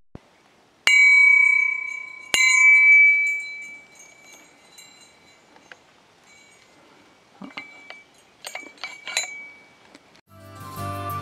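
A hanging steel pipe struck with a hammer, used as a makeshift bear-warning bell: two loud metallic clangs about a second and a half apart, each ringing on and fading, then several lighter strikes later.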